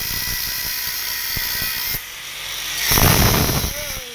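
Electric angle grinder with a cutoff disc grinding through metal, running steadily for about two seconds. It then eases off, and a short, louder burst of cutting follows near the end.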